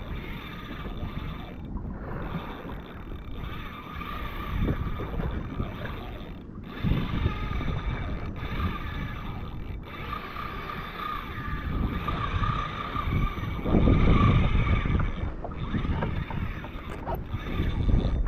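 Wind buffeting the microphone in irregular low gusts over the sound of open-sea water around a kayak, with a faint steady whine underneath.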